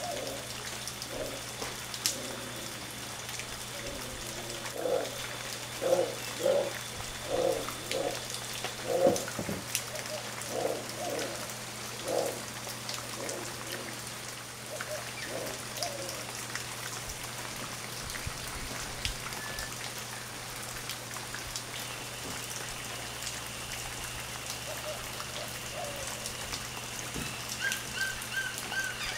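Guatemalan black howler monkeys giving a run of short low grunting calls, one or two a second, louder through the middle and dying away after about sixteen seconds, over a steady high drone.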